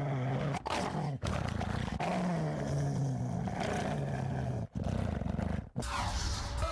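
Roars and growls from a big cat, a string of them, each mostly falling in pitch, cut off abruptly several times. They are dubbed over an athlete baring his teeth. A whooshing sweep comes near the end.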